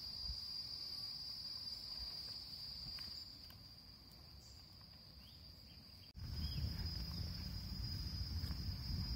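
Insects droning in one steady high-pitched tone, with low rumbling noise underneath that fades midway and returns abruptly about six seconds in.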